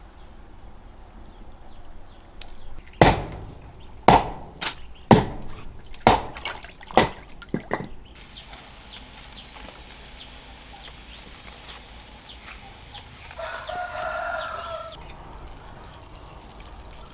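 A run of sharp chopping blows, about one a second for some five seconds. Later a chicken gives one pitched call lasting under two seconds.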